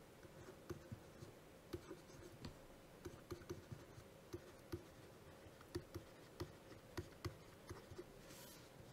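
Faint, irregular taps and light scratches of a pen writing words by hand, a few strokes a second.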